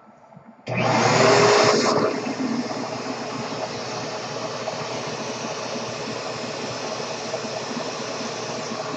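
Vacuum cleaner switched on about a second in and running steadily, loudest for the first second or so after it starts.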